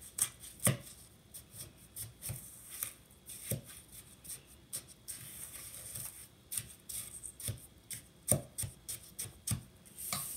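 Wooden spoon stirring and mashing wet snow ice cream in a stainless steel bowl: irregular knocks and scrapes of the spoon against the metal, a few of them sharp and loud.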